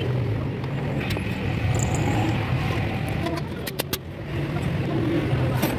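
Steady low engine-like rumble, with a quick run of sharp metallic clicks a little past halfway as pliers work a lead-acid battery terminal.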